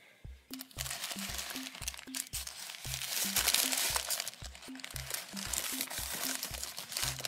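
Background music with a steady, repeating bass line. Over it, a continuous crinkling noise starts just after the beginning.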